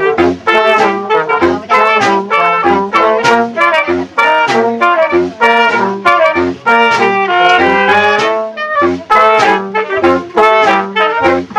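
Small brass band playing a lively tune: trombone, trumpet, saxophone and clarinet in short, rhythmic phrases, with a bass line and drum strokes underneath.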